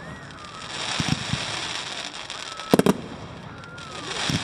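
Fireworks going off: a hissing crackle of bursting shells with deep thuds about a second in, a loud pair of sharp bangs about two and a half seconds in, and another bang near the end.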